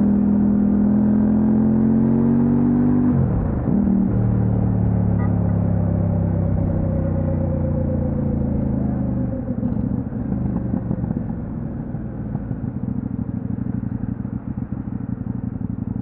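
Kove 800X Pro's parallel-twin engine under way, its note climbing, then dropping abruptly about three seconds in and holding steady; around nine seconds in the clear engine note gives way to a rough low rumble as the motorcycle eases off.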